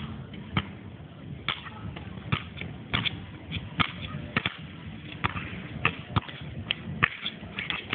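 Basketball bouncing on a hard outdoor court: a series of sharp thuds, most a second or less apart, with other faint knocks in the background.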